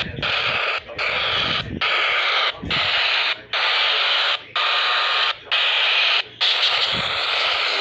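Harsh static-like noise from a radio, coming in about eight bursts roughly a second apart with short breaks between them, then running on without breaks over the last second or so.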